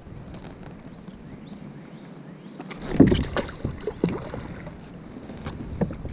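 Knocks and bumps against a small boat's hull while a caught bowfin is handled and let go. A heavy thump comes about three seconds in, followed by scattered lighter knocks and clicks.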